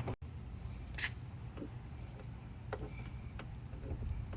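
Faint, scattered clicks and taps of a wiring harness and its plastic clips being handled and fitted inside a van door, over a low steady hum.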